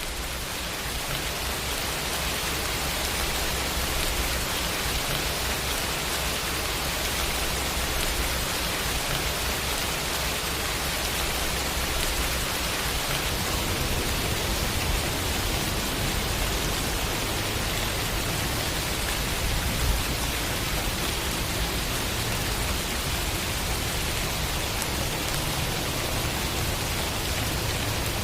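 Rain sound effect: an even, steady hiss of heavy rainfall with a low rumble underneath. It fades up in the first second.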